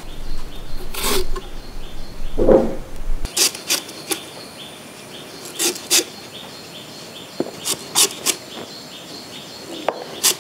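A curved billhook knife cutting through a peeled banana stem, about nine crisp, short cuts at irregular intervals as the stem is sliced into discs.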